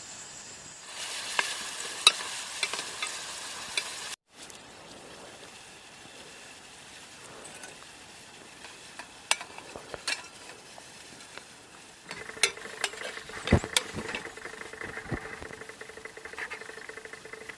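Food sizzling in a pan, with the scattered clicks and scrapes of a utensil stirring it. The sound drops out briefly about four seconds in.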